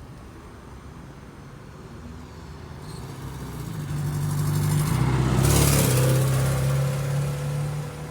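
A car driving past: engine and tyre noise swells to its loudest about five and a half seconds in, then fades away.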